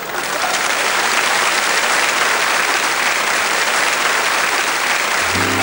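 Theatre audience applauding loudly and steadily after the final punchline. Near the end a low held tone comes in under the applause.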